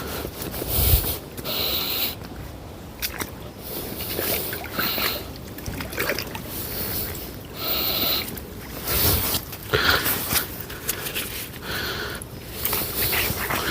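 Water sloshing and splashing in irregular bursts, as a carp is being returned to the lake.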